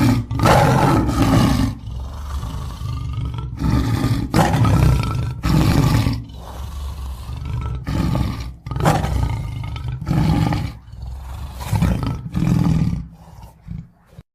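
A big cat roaring and growling, a string of about ten loud, rough roars with short pauses between them.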